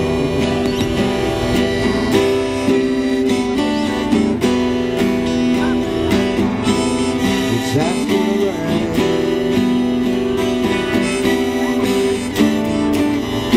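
Two acoustic guitars strumming together in a live band performance, with steady, continuous music.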